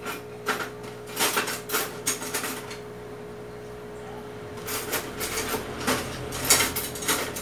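Small kitchen utensil clicking and scraping against plates in a run of light, irregular knocks, pausing briefly midway, with a faint steady hum underneath.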